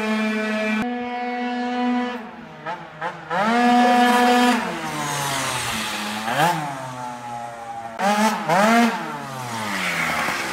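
Beta Ark scooter's two-stroke Minarelli engine, fitted with a 70 cc Malossi cylinder and a Malossi exhaust, running near full revs, about 13,800 rpm. It eases off, revs hard again, and drops in pitch each time it rides past and away.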